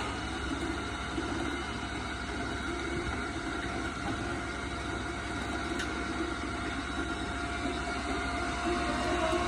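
Electric onion slicing machine running steadily, its motor giving a constant hum with a steady whine over a fast low rumble, growing slightly louder near the end.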